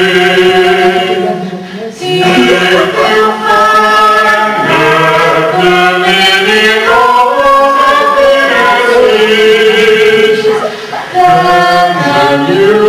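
Singing from a live stage musical: voices carry a slow melody in long held notes, dipping briefly about two seconds in and again near the end.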